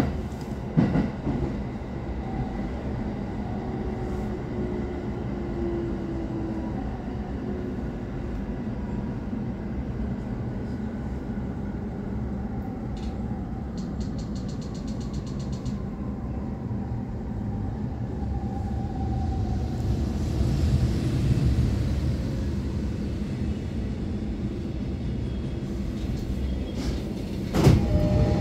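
Running noise heard inside a moving electric train: a steady rumble of wheels on rail, with a faint motor whine that shifts in pitch. Near the end it suddenly gets louder as a container freight train passes close alongside on the next track.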